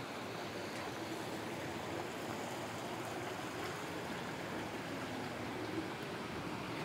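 Steady rushing of running water, even and unbroken, with one brief tap near the end.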